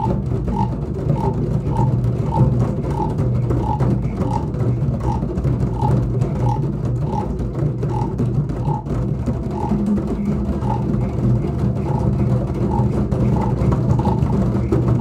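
A group of children drumming a continuous low rumble on drums, imitating a heavy rainstorm, with a steady light tap about three times every two seconds.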